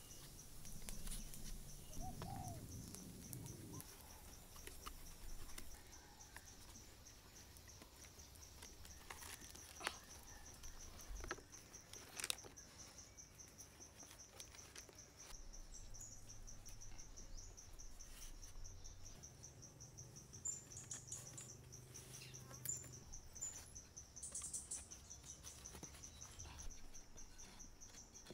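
An insect trilling steadily, a high, rapidly pulsing buzz, with a few short bird chirps in the second half. Two or three light knocks stand out about ten and twelve seconds in.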